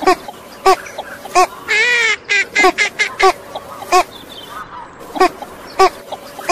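Ducks calling: a run of short, nasal quacks a fraction of a second apart, with one longer wavering call about two seconds in and a pause around four to five seconds.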